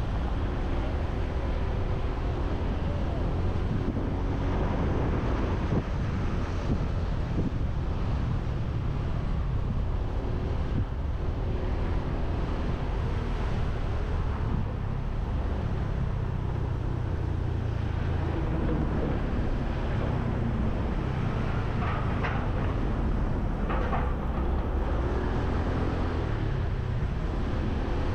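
Motorbike engine running at road speed, its pitch shifting a little with the throttle, under steady wind rumble on the microphone and the sound of the surrounding street traffic.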